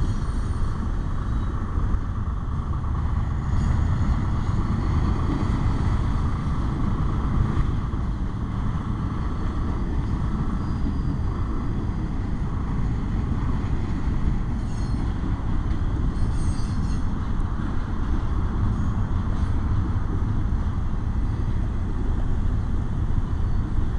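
Double-stack intermodal freight cars rolling past a road crossing: a steady low rumble of steel wheels on rail, with a few brief faint squeaks and clanks.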